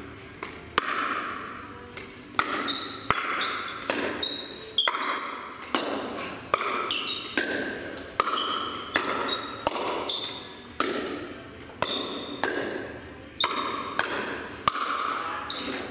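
Pickleball rally: hard paddles hitting the plastic ball back and forth in a quick steady exchange of sharp pops, a little under two a second. Each pop echoes in a large gym hall.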